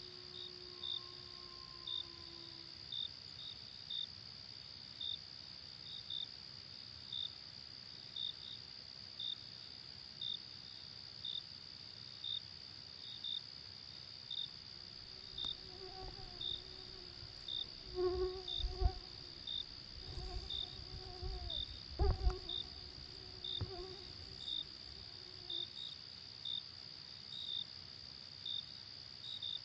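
Night cricket chorus: a steady high insect trill with a cricket chirping about once a second. Roughly halfway through, low hooting calls come in for about ten seconds, with a few low thuds.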